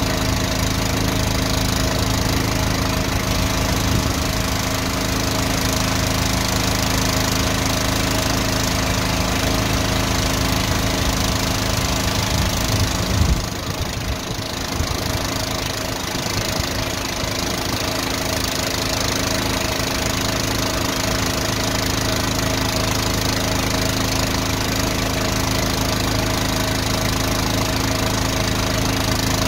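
Van-mounted drain jetter's engine running steadily under load, driving the high-pressure pump for water jetting down a drain. The note dips and breaks briefly about halfway through before settling back to a steady run.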